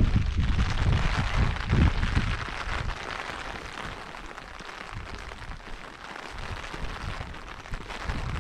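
Wind buffeting the microphone in irregular low gusts, strongest in the first three seconds, then easing, over a steady hiss of rain.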